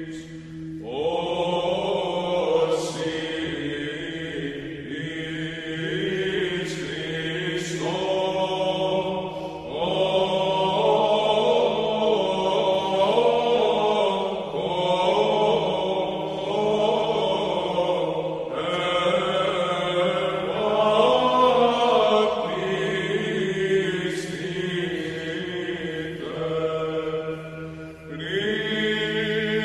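Background music of chanted voices over a steady held low drone note.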